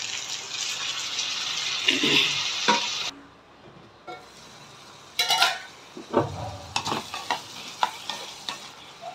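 Chopped tomatoes sizzling in hot butter and onions in a kadhai as they are tipped in and stirred with a wooden spatula; the sizzle cuts off suddenly about three seconds in. A little after five seconds a steel pot lid clatters, followed by the spatula scraping and knocking against the kadhai.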